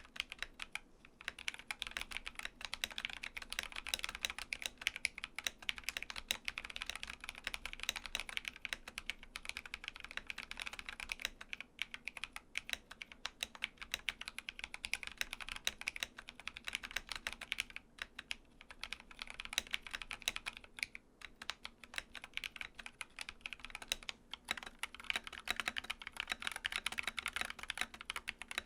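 Typing on a mechanical keyboard for a switch sound test: a fast, continuous run of key clicks, broken by a few brief pauses.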